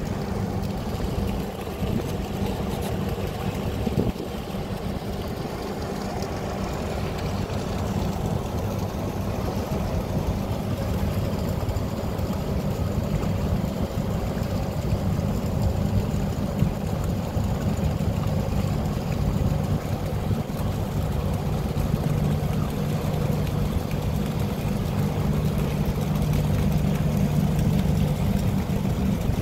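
Boat engine running with a steady low drone at close range, growing a little louder near the end.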